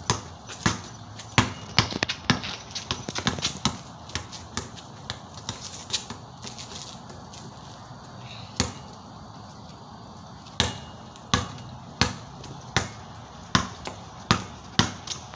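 Basketball bouncing on a concrete driveway. Quick, irregular bounces come over the first few seconds, then fewer and more scattered ones, then a steady dribble of about three bounces every two seconds near the end.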